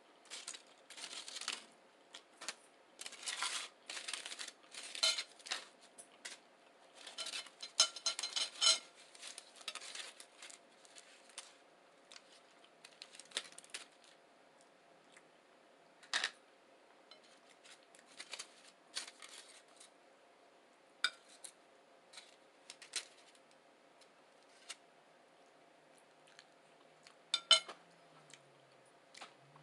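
Person eating a breakfast burrito close to the microphone: crackly chewing and mouth clicks, busy through the first ten seconds, then sparse single clicks.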